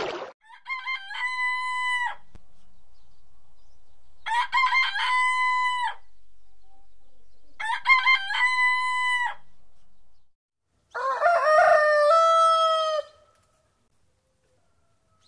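A rooster crowing four times, each crow lasting about a second and a half; the last crow is lower-pitched than the first three.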